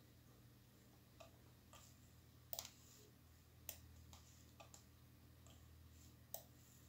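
Near silence with several faint, sharp clicks scattered irregularly, the clearest about two and a half, three and a half and six seconds in.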